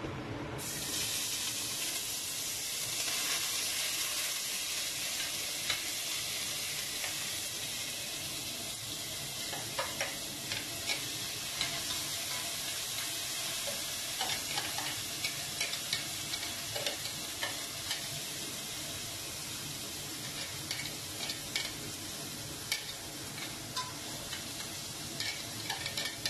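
Chopped dry onion frying in about 100 grams of hot oil in a stainless steel pot. A steady sizzling hiss starts about half a second in as the onion goes in, with scattered small pops and clicks throughout.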